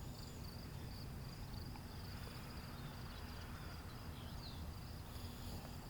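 Insects chirping steadily in a continuous high-pitched drone, over a faint low steady hum of background noise.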